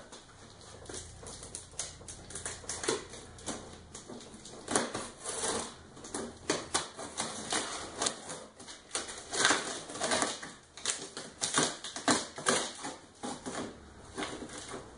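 A taped cardboard box being opened by hand: an irregular run of quick scratching and crackling strokes as packing tape is cut and torn and the cardboard scraped.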